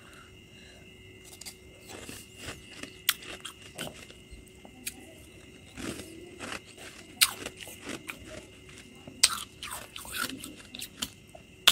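Slushy freezer frost being bitten and chewed up close: irregular wet, crisp crunches starting about a second in, a few much louder than the rest.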